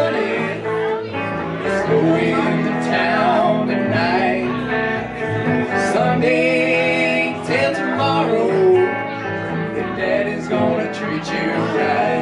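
Live country band music: a Telecaster-style electric guitar and an upright bass playing, with a man singing.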